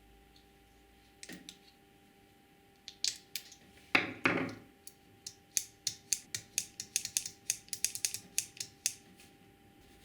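Hand work on the parts of an old Black and Decker electric drill: two knocks, then an even run of sharp mechanical clicks, about four a second, like a ratchet.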